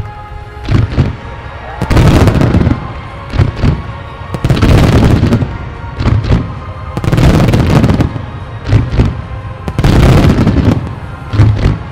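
Aerial firework shells bursting in quick succession, with a loud boom about every one to two seconds. Music plays underneath.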